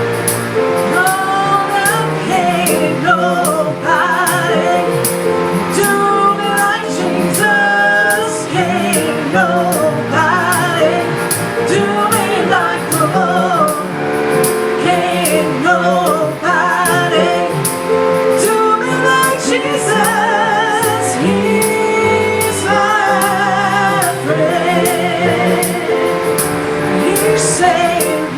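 A worship song: a singer's voice with vibrato over sustained instrumental chords.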